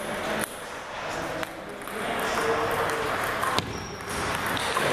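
Table tennis ball clicking off paddles and the table: a handful of sharp, separate ticks spread over a few seconds, with background chatter.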